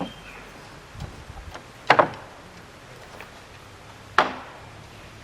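Three sharp knocks: one at the start, a louder double knock about two seconds in, and another a little after four seconds, with faint clicks between them.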